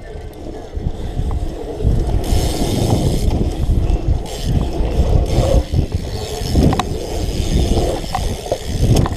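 Wind buffeting an action camera's microphone while a bicycle is ridden fast over a dirt jump track, with tyre and frame noise and a few sharp clicks and knocks from the bike near the end.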